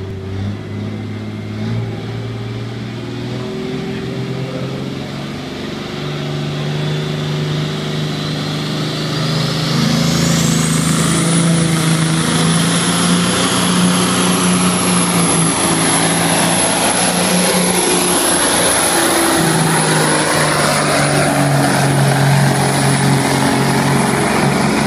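Turbocharged diesel semi truck running flat out under load on a pulling track, its engine note steady and growing louder as it comes closer. About halfway through, a high whistle climbs over several seconds and then holds, the turbo spooled up at full boost.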